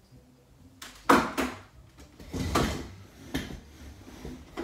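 A string of knocks and clatters from things being handled and set down by the desk and chair, the loudest about a second in.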